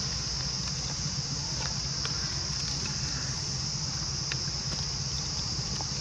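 Steady high-pitched drone of insects over a low rumble, with a few faint clicks.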